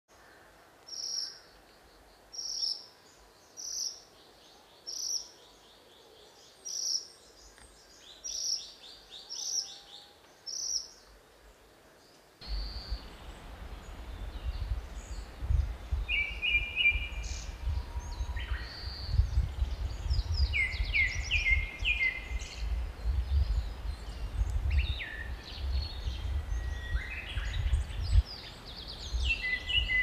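Ashy minivet giving its short, high, trilled call eight times, about one every second and a half. About twelve seconds in, wind starts rumbling on the microphone while birds keep calling with varied trills.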